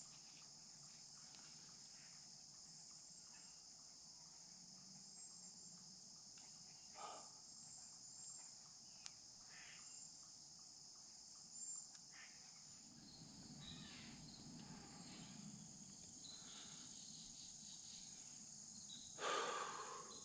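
Steady, high-pitched insect chorus in the woods, faint overall, with a few soft rustles of clothing and gear; the loudest rustle comes about a second before the end.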